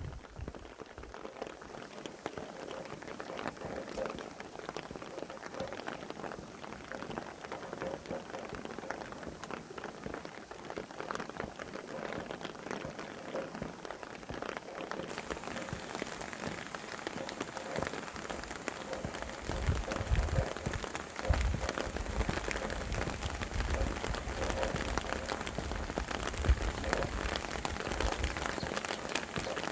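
Steady rain with many small drops pattering on a surface. From about two-thirds of the way in, gusts of wind add a low rumble that comes and goes.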